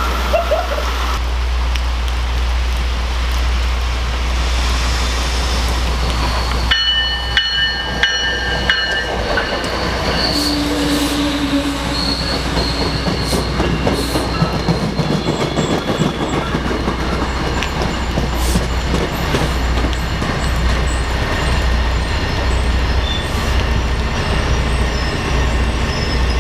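Passenger train running along the tracks: a continuous rumble of wheels on rail, with high metallic squeals that come and go, clearest about seven to nine seconds in.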